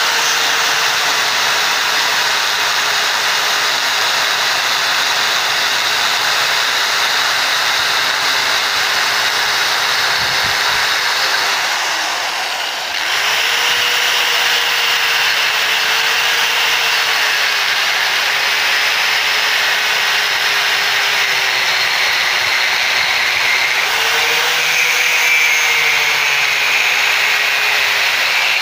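Electric angle grinder spinning a CD in place of a cutting disc, grinding into a coconut's husk and shell. The motor's whine sags as the disc is pressed in and rises when it is eased off; it drops away briefly about twelve seconds in, then picks up again.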